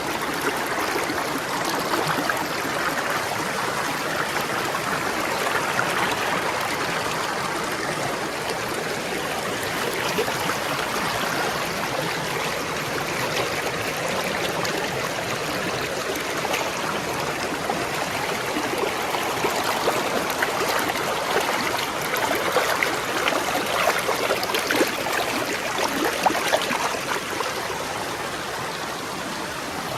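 Stream of water flowing and babbling steadily over stones, with small splashes and gurgles flickering through the rush.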